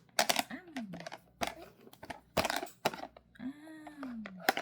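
Mealtime eating sounds: sharp clicks and taps of a spoon against dishes with chewing, and twice a short hummed voice sound that falls in pitch.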